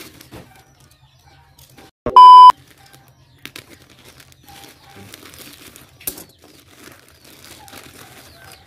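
A loud, steady bleep lasting about half a second, about two seconds in, of the kind edited in to censor a word. Around it is faint rustling and crinkling as a plastic courier pouch is handled and opened.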